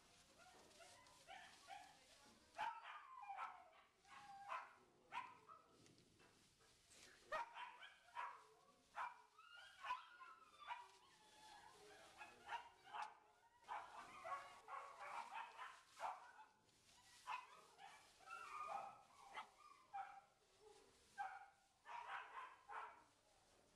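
Two puppies yipping and barking over and over in short, irregular calls as they play-wrestle, with the shredded-paper bedding rustling under them.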